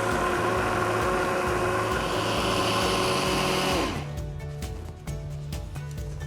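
Electric food processor running at full speed as it chops vegetables, a steady motor whine that cuts off about four seconds in and spins down with a falling pitch. Background music plays underneath.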